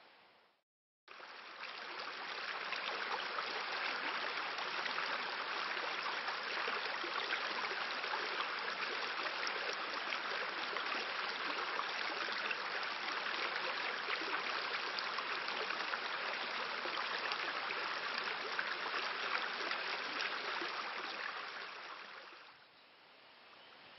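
Steady rush of flowing stream water, coming in sharply just after a brief dropout near the start and falling away to a faint hiss near the end.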